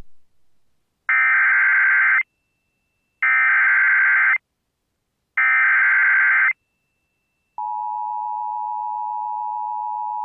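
Emergency Alert System SAME header: three bursts of warbling data tones, each about a second long with short gaps between. About seven and a half seconds in, the steady dual-tone EAS attention signal starts, announcing an incoming alert.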